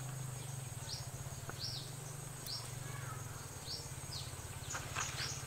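Outdoor ambience: a bird repeating short, falling chirps every half second to a second, over a steady high-pitched insect drone and a faint low hum.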